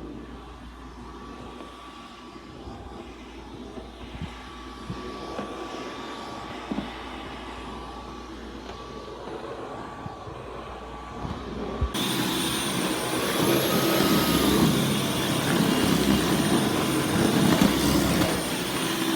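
Dyson V11 cordless stick vacuum running with a steady whine, fainter at first, then about twelve seconds in suddenly much louder and closer, its pitch rising and falling back once.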